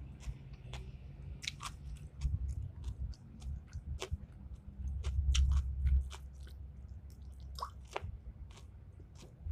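A person chewing and biting food close to the microphone, with many short, sharp mouth clicks and crunches. A louder low rumble comes about five seconds in and lasts about a second.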